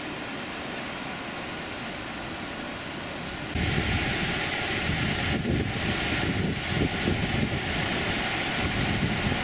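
Steady road noise from inside a moving car, then, about three and a half seconds in, a sudden switch to the louder rush of a fast mountain river tumbling over rocks, with wind buffeting the microphone.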